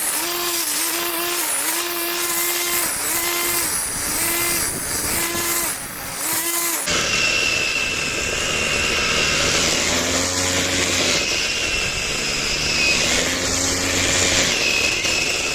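Homemade grass cutter built from an electric angle grinder running, its pitch repeatedly dipping and recovering about once a second as it works. About seven seconds in the sound changes abruptly to a steadier, noisier run with a high whine.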